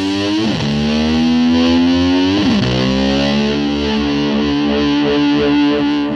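Distorted electric guitar holding sustained notes, its pitch swooping down and sliding back up twice, as the hard rock track nears its end.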